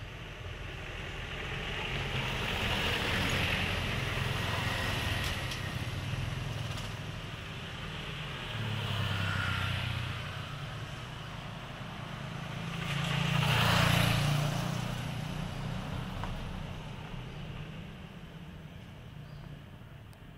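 Road vehicles passing by: a steady rumble with tyre hiss that swells and fades three times, the loudest pass about two-thirds of the way through.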